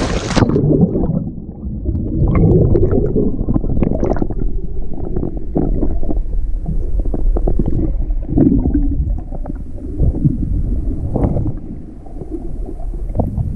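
A splash as the camera goes into the sea, then muffled underwater sound: a low, churning water rumble and gurgle with scattered ticks and knocks, all the higher sound cut off.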